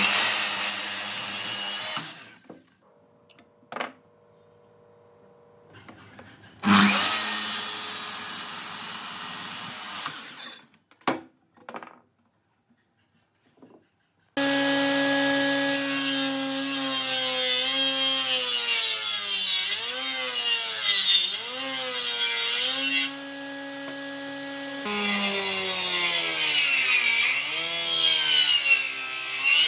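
Makita miter saw making two crosscuts through a pine board, each a few seconds of the blade running through the wood. Then a combination woodworking machine's table saw runs steadily from about a third of the way in, its pitch dipping and recovering several times as wood is fed through the blade.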